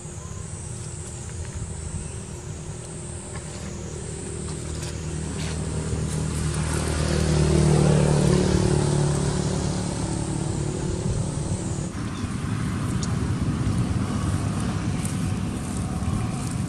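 A motor vehicle passing by, its engine growing steadily louder to a peak about halfway through and then fading away.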